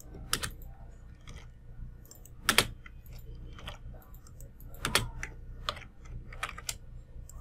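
Computer keyboard keystrokes, irregular and unhurried, with a few louder strokes scattered among them.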